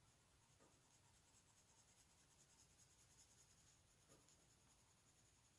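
Faint scratching of a watercolour pencil shading back and forth over paper, with a couple of small ticks.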